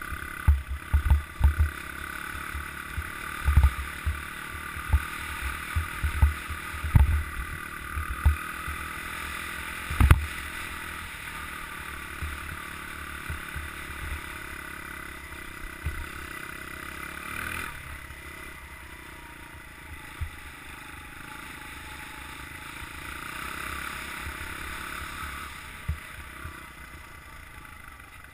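Honda CRF100F's small air-cooled four-stroke single-cylinder engine running steadily while riding over rough, snowy ground. Low thumps come often in the first ten seconds, with a sharp knock about ten seconds in, and become few after that.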